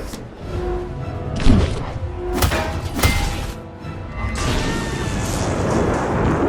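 Action-film battle sound effects over orchestral score: several sharp impacts and crashes about a second and a half, two and a half and three seconds in, then a rushing, rumbling wash building through the second half.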